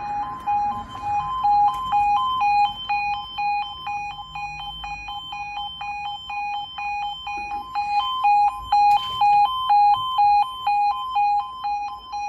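Level crossing audible warning alarm: a two-tone electronic yodel that steps back and forth between a lower and a higher pitch a few times a second in an even rhythm. It sounds while the barriers are lowering, warning of an approaching train. It is louder for a couple of seconds from about eight seconds in.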